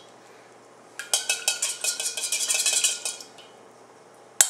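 Steel measuring spoon scraping and clinking against the inside of a stainless steel saucepan, scraping off the last of the caramel coloring. It comes as a quick run of scrapes and clinks from about a second in for two seconds, then a sharp clink near the end.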